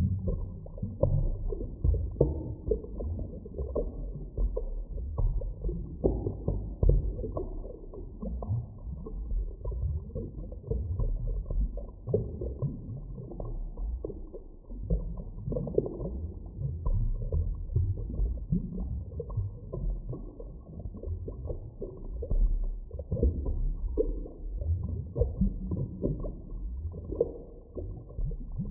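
Muffled underwater ambience from a drowning sound effect: a low, churning rumble with irregular gurgling bubble surges, dull, with nothing high-pitched.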